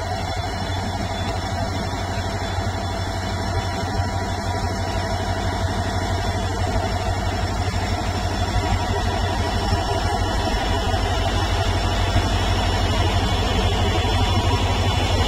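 WDG4D diesel-electric locomotive's EMD 16-cylinder two-stroke engine running under load as it pulls a RO-RO freight train away, with a low rumble and steady engine tones. The sound grows slowly louder as the loaded wagons roll past.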